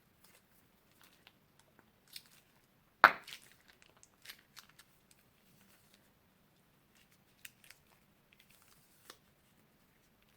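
Crunchy slime being handled, crackling and popping in scattered small clicks, with one loud crack about three seconds in.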